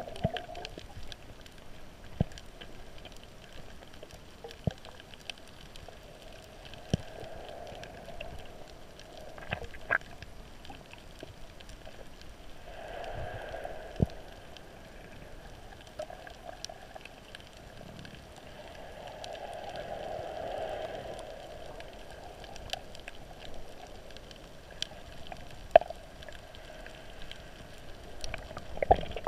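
Underwater ambience picked up by a camera in its waterproof housing: a low, muffled wash that swells twice, with scattered sharp clicks every few seconds.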